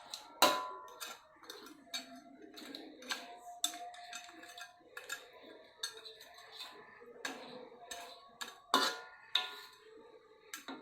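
Irregular clinks and knocks of kitchen utensils against pots and pans during cooking, with sharp louder knocks about half a second in and again near nine seconds.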